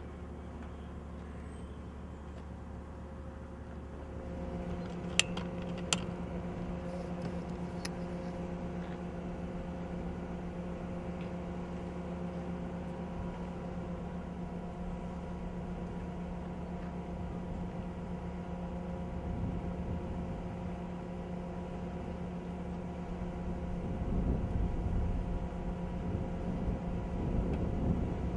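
Heavy crane machinery running steadily with a low engine hum. Two sharp clicks come a few seconds in, and a louder low rumble builds near the end.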